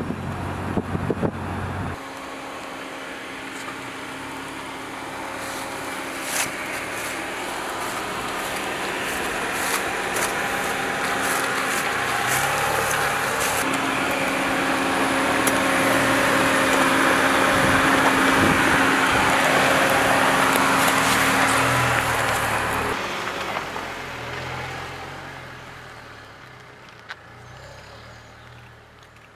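Dacia Duster 4x4 driving over rough ground: engine and tyre noise that swells to its loudest past the middle, then fades away.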